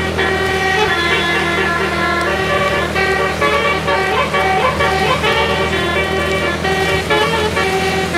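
Bus telolet horn, a multi-trumpet musical air horn, playing a quick melody of short notes that step up and down in pitch, with a steady low engine hum beneath.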